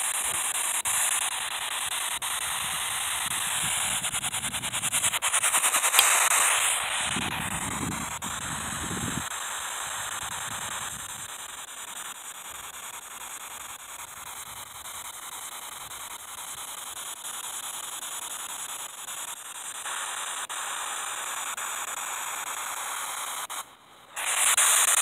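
Steady radio static hiss from a handheld spirit box sweeping for voices. It swells louder about six seconds in and cuts out briefly near the end.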